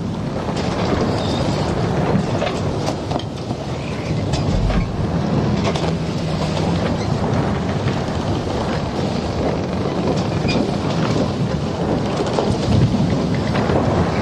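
Storm noise: a steady, loud rush of wind and rain over a low rumble.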